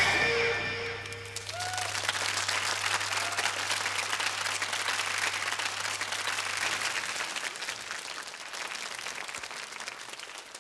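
Studio audience applauding as the band's last chord dies away in the first second. A low hum lingers under the clapping for most of it, and the applause fades out near the end.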